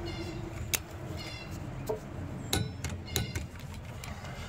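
Several sharp metallic clicks and knocks of a wrench on a rear brake caliper bolt, which is being tightened with a click-type torque wrench to 20 foot-pounds.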